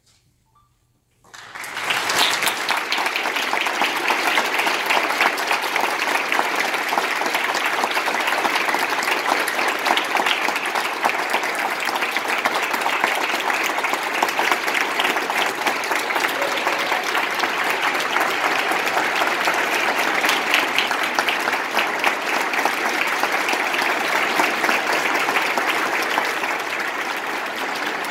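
Audience applauding: clapping breaks out suddenly about a second in after a brief silence, then keeps up steadily, easing slightly near the end.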